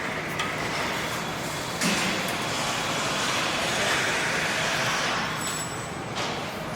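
Steady machinery noise on a truck assembly line, with a hiss of air starting suddenly about two seconds in and lasting a few seconds.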